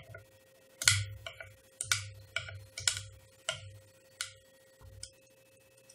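Knife blade clicking and scraping against a 3D printer's print bed as it pries a freshly printed part loose: about ten sharp clicks, each with a small thud, over three to four seconds, with a faint steady hum underneath.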